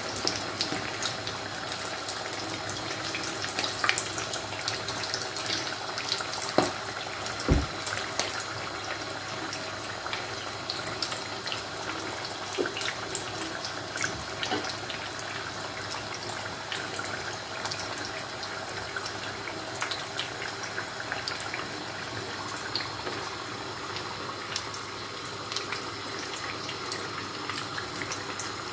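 Samosas deep-frying in a pan of hot oil: a steady sizzle and bubbling, dotted with small crackles and pops, with a few sharper clicks between about four and eight seconds in.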